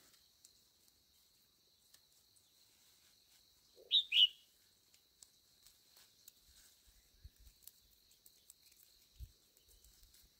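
A bird calls twice in quick succession about four seconds in: two short, sharp chirps, each falling in pitch. Faint low knocks follow later.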